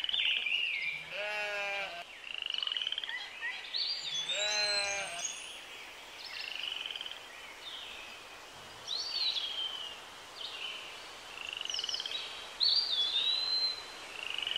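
Birds chirping and singing in short repeated phrases of high sliding whistles, with two brief lower, buzzier calls about one and four and a half seconds in.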